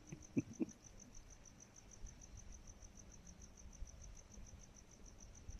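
A cricket chirping steadily in a high, even pulse, about five chirps a second. Two soft knocks come about half a second in.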